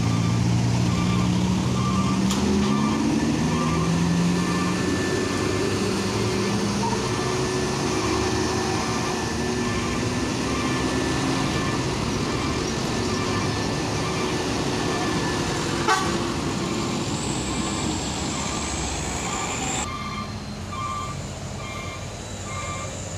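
Heavy diesel trucks running on a steep climb. One engine note rises over the first few seconds. A truck's reversing alarm beeps at a regular pace throughout, and there is one sharp click about 16 seconds in.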